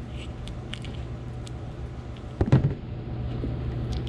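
Workshop bench work: a steady low hum under scattered light clicks and taps, with one louder knock about two and a half seconds in.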